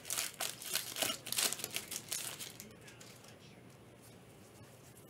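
Foil trading-card pack wrapper crinkling and crumpling in the hands for about the first two and a half seconds, then it drops to quiet handling.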